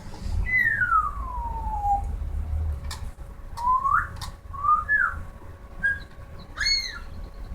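Pet bird whistling: one long falling whistle, then a series of short rising and arched whistles, broken by a couple of sharp clicks.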